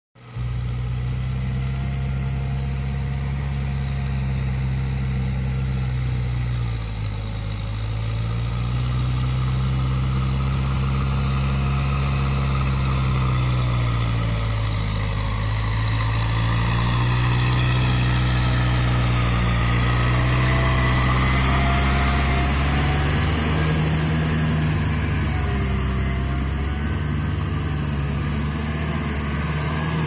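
Kubota M6040 SU tractor's four-cylinder diesel engine running under load as it cultivates a flooded rice paddy, a steady engine note whose speed sags briefly a couple of times and then picks up again.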